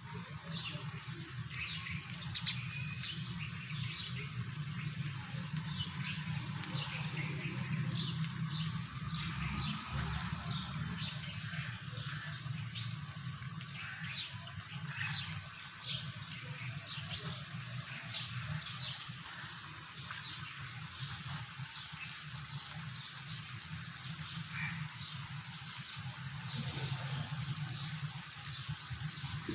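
Rain falling steadily on a wet street, with many birds chirping in short calls throughout and a steady low rumble underneath.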